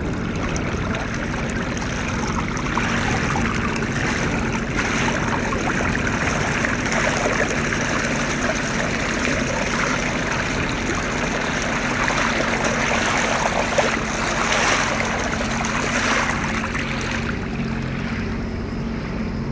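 Sea water trickling and splashing around a bare foot trailed over the side of a moving boat, with a steady low hum underneath.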